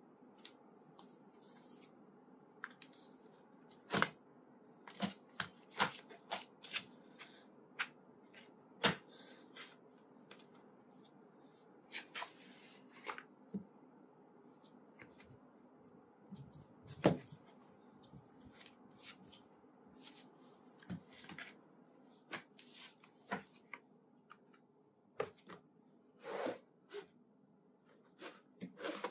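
Irregular clicks, taps and light knocks as a tablet is handled and fitted into a hard plastic flip case and the cover is folded, over a faint steady hum of room tone. The loudest knocks come about four seconds in and again after about seventeen seconds.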